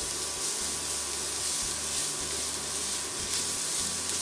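Grated carrot and diced onion sizzling in vegetable oil in a frying pan, a steady frying hiss.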